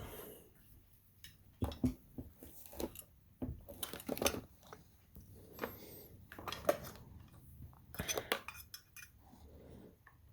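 Irregular clinks, knocks and rattles of metal parts being handled on a desk while a Leslie speaker's two-speed motor stack is readied to be plugged in; no motor is running yet.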